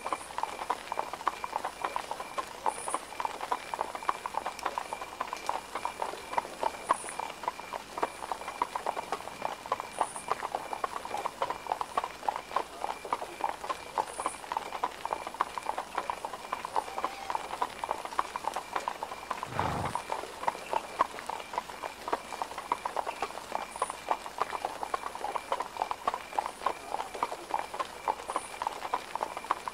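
Horse hooves clip-clopping steadily on cobblestones, many hoof strikes a second without a break. A single low, dull thump sounds about twenty seconds in.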